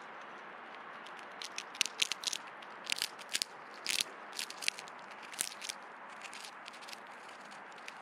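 Small animal feeding at a bird feeder, cracking and pecking at seeds: a quick, irregular run of sharp clicks and cracks lasting about four seconds, over a steady background hiss.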